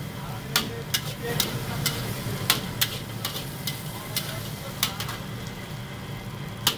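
Fried rice being stir-fried in a wok: a metal ladle clanks and scrapes against the wok about twice a second at an uneven pace, over a steady sizzle and a low hum.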